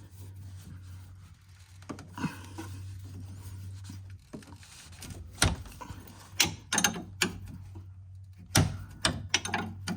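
Wrench working at the 18 mm nut on a car's sway bar link: scattered metal clicks and knocks, about nine in all, the loudest a few seconds in and near the end. The link's stud is spinning along with the nut instead of the nut breaking loose.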